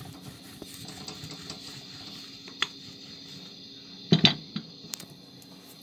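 Rolling pin rolling out a stuffed potato paratha on a stone rolling board: a soft, even rubbing, with a few light clicks and a couple of sharp knocks about four seconds in.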